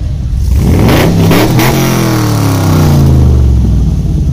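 Car engine revved hard, its pitch climbing quickly and then falling away slowly as the revs drop.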